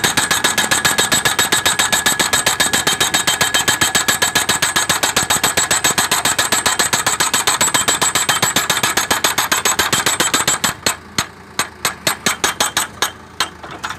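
Hydraulic post driver hammering a steel guardrail post into the ground with fast, evenly spaced blows and a ringing tone. After about ten and a half seconds the blows thin out into separate strikes, and they stop near the end.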